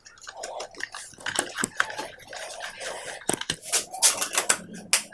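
Screwdriver tightening the screws of a plastic modular switch board plate onto the wall: a run of small irregular clicks and scrapes, with sharper clicks in the second half.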